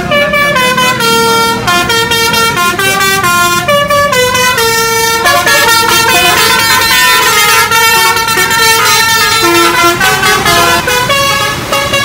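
Basuri musical air horns on a tour bus playing a loud, fast tune of quickly changing notes, several tones sounding together.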